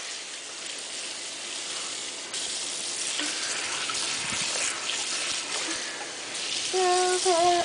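Kitchen faucet running a steady stream of water into a stainless steel sink as a bowl is rinsed under it, the splashing getting a little stronger about two seconds in.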